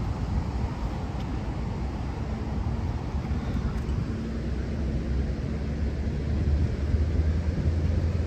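Wind rumbling on the microphone, with a low steady hum that grows louder in the second half.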